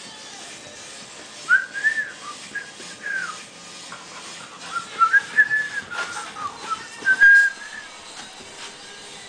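A person whistling short notes that rise and fall, in bursts about a second and a half in and again around five to seven seconds, ending with a brief held note.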